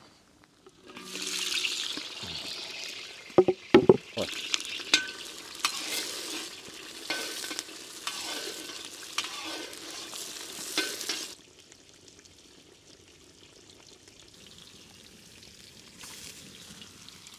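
Food sizzling in hot fat in a pan, with a utensil stirring and knocking against the pan, several sharp knocks about three to four seconds in. The sizzling drops away sharply about eleven seconds in, leaving a faint low hiss.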